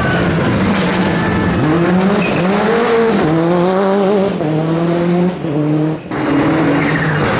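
Rally car engine revving hard, its pitch climbing and dropping again several times through throttle lifts and gear changes, with tyres squealing as the car slides.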